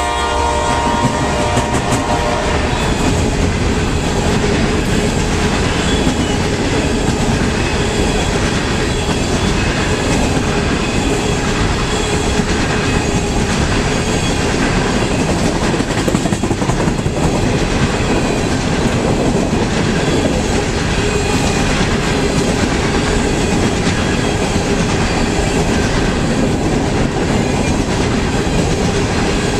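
Coal train's hopper cars rolling past close by, a steady, loud rolling noise of wheels on rail with a steady ringing tone running under it. The tail of a locomotive horn fades out in the first two seconds.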